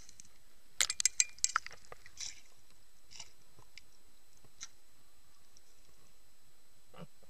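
Sharp clicks and knocks heard underwater as a speared peacock bass thrashes on the spear shaft: a quick cluster of several loud clicks about a second in, then a few fainter single clicks spaced out over the next few seconds.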